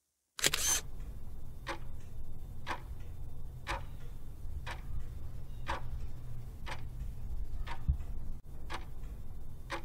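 Clock ticking about once a second, about nine ticks, over a steady low hum, as a timer sound effect while a quiz photo is shown. It opens with a brief loud burst of noise about half a second in.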